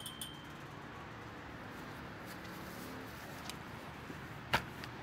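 A few faint metallic clinks from the steel chain-link gate frame as it is moved on its hinges, over a quiet outdoor background, then a single sharp knock about four and a half seconds in.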